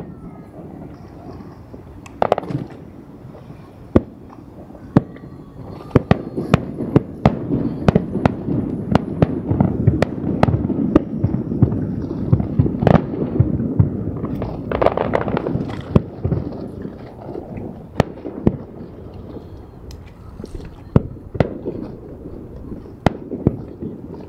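Fireworks display: aerial shells bursting with sharp bangs, a few at first, then a dense run of bangs over a continuous wash of noise from about a quarter of the way in to about two thirds through, thinning to scattered bangs near the end.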